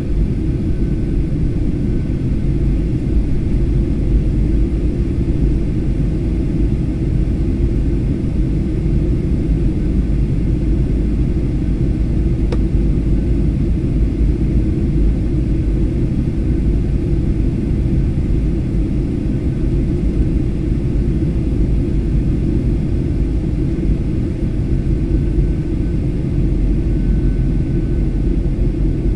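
Steady low rumble of jet engines and airflow heard inside the passenger cabin of a Boeing 737-800 airliner on approach, with a faint high whine.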